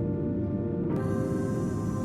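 Background music: sustained bell-like synth chords over a steady low beat, with a new chord coming in about a second in.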